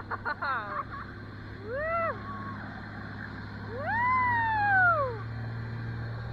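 High voices squealing and whooping in rising-and-falling glides, with a few short ones near the start and one long one about four seconds in, over the steady low hum of the tow boat's engine and winch.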